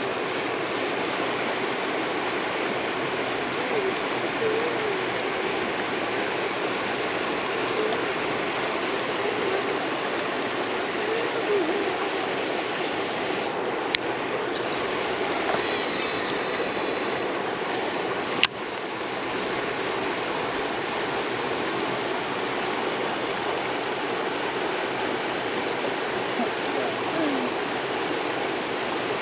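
River water rushing steadily, an even wash of noise, with two sharp clicks near the middle about four seconds apart.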